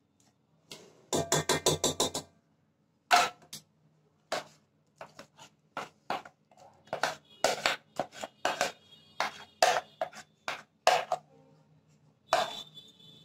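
Metal spoon clinking and tapping against the dishes as cake batter is scraped from a bowl into a cooker pot: a quick run of about nine ringing taps about a second in, then scattered clinks and scrapes, and another quick run of taps starting near the end.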